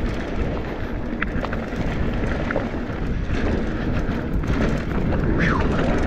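Mountain bike riding fast down a dirt trail: steady tyre noise over dirt and rocks, with scattered rattles and knocks from the bike and wind noise on the microphone. A short falling squeal comes near the end.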